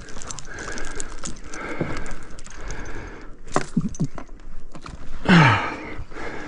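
Scattered knocks, clicks and rattles of things being handled, with a short falling grunt from a man about five seconds in.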